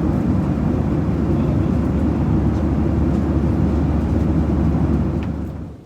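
Steady low rumble of a Skymark Boeing 737-800's jet engines and rushing air, heard inside the cabin; it falls away sharply near the end.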